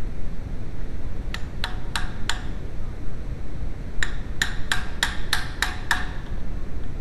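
A hammer striking the end of a metal tube driver set over the rear hub's stub axle, driving a new wheel bearing into place: four sharp ringing taps, a pause, then a run of seven quicker taps.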